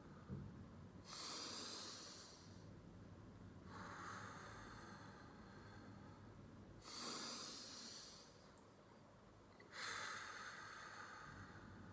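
A man taking slow, deep breaths in and out close to the microphone, a soft hiss about every three seconds, as in a calming breathing routine.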